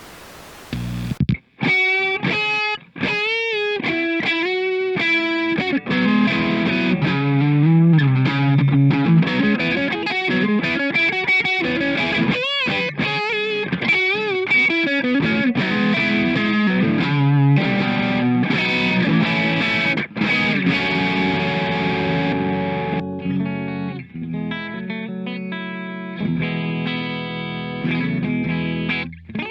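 Squier '70s Classic Vibe Starcaster electric guitar played through overdrive and effects, a distorted rock jam that starts about a second in.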